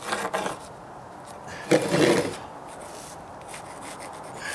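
Handling noise on an OSB plywood subfloor: gloved hands and a metal level rubbing and scraping across the board, with a pencil marking it. There are two louder scuffs, one at the start and one about two seconds in.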